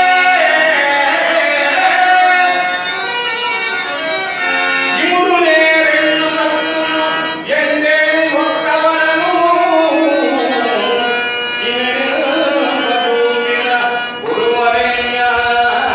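A male voice singing a Telugu dramatic verse (padyam) in long held notes that slide up and down, over live accompaniment with dholak.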